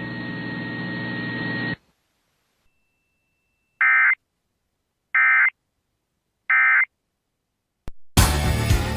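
Emergency Alert System end-of-message signal: three short, identical warbling data bursts (the SAME "NNNN" code) about a second and a half apart, after a couple of seconds of broadcast hiss with a low hum that cuts off. A click, then music begins near the end.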